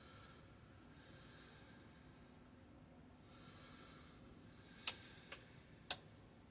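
Oven running on bake, clicking: three sharp clicks near the end, two loud ones about a second apart with a fainter one between, over faint steady background noise.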